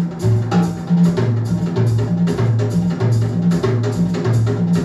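Recorded music with a drum kit and a bass line, played from a vinyl record on a McIntosh MTI100 turntable through B&W 804 floor-standing loudspeakers, heard in the room. The drums keep a steady beat and the bass steps between a few low notes.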